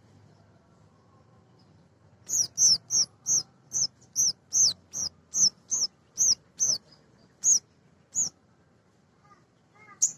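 Male little spiderhunter (sogok ontong) calling: a quick series of about sixteen sharp, high, down-slurred notes, two to three a second, starting about two seconds in and stopping a couple of seconds before the end, followed by a few faint chirps.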